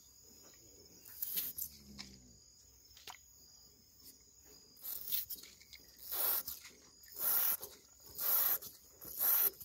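Short hisses of an aerosol wound spray being sprayed onto a cow's wound: one about a second in, then five louder bursts about a second apart from about five seconds in. Insects give a faint steady high tone underneath.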